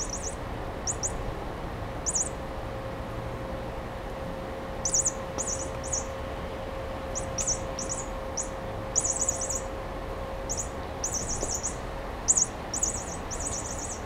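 A chirping cat-toy mouse making high, bird-like chirps in short rapid clusters of two to six, with pauses of up to a couple of seconds between clusters.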